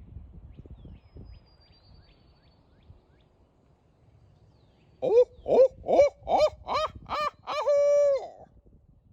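A hunter's owl hoot locator call, made with his own voice: a loud run of about seven rising-and-falling hoots ending in one long drawn-out note, meant to make a turkey gobble. Before it, faint bird chirps and a low wind rumble.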